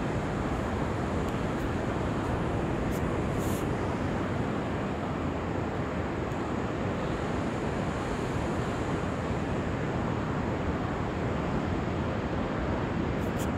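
Steady rush of ocean surf breaking on the beach, with wind on the microphone.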